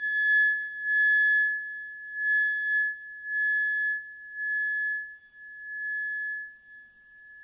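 Haniel tuning fork ringing one steady high tone that swells and fades about once a second and grows fainter toward the end.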